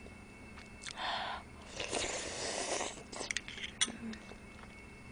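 A person slurping and chewing seafood knife-cut noodles (kalguksu) close to the microphone, with a few light clicks of utensils on the bowl.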